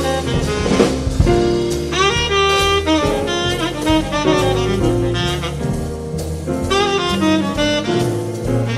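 Jazz quartet playing: saxophone leading the melody over piano, upright double bass and drum kit.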